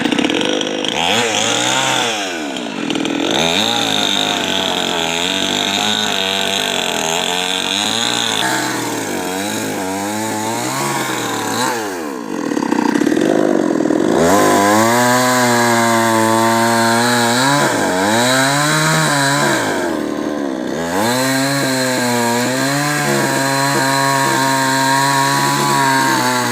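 Chainsaw running while cutting through a coconut palm trunk, its engine note sagging and picking back up again and again as the chain bites and frees.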